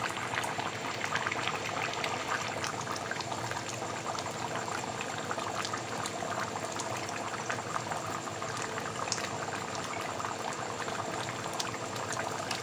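Beef heart and kidney curry bubbling and crackling steadily in a pot over a medium flame, frying down in oil with yogurt.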